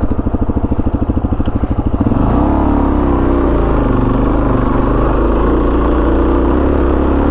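Dual-sport motorcycle engine running at low revs with distinct firing pulses, then picking up revs about two seconds in and pulling steadily as the bike rides off, with the pitch rising and falling.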